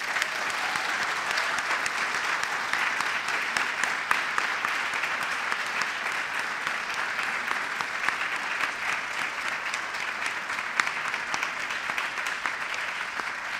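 Audience applauding: many hands clapping at once, starting suddenly and easing off slightly toward the end.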